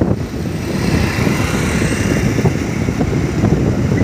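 Riding on a motorbike: the engine runs steadily under a constant rush of wind and road noise on the microphone.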